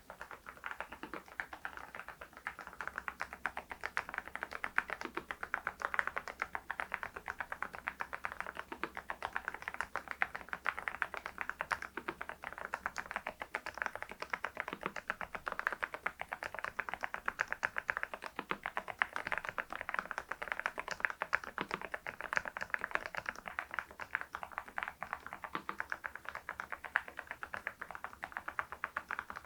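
Steady, continuous typing on an RK R99 mechanical keyboard fitted with HMX V0-SS switches, a dense run of keystroke clicks and clacks.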